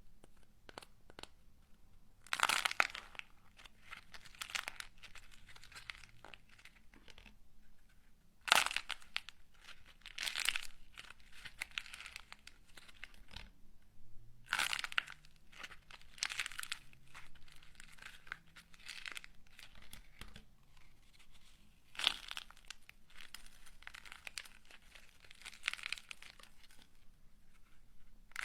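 Close-up crinkling and tearing noises in short, irregular strokes a second or two apart, with several louder rips among them.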